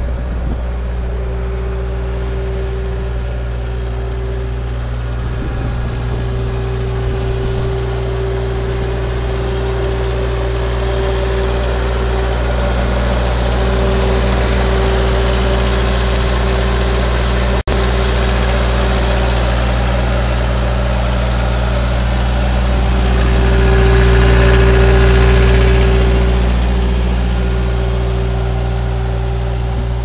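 New Holland LS160 skid steer's diesel engine idling steadily. It grows louder for a few seconds about three-quarters of the way through.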